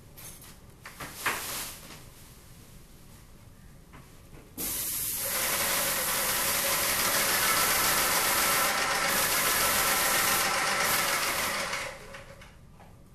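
Ceiling sprayer spraying: a loud, steady hiss that starts abruptly about four and a half seconds in and dies away about a second before the end, after a few faint knocks.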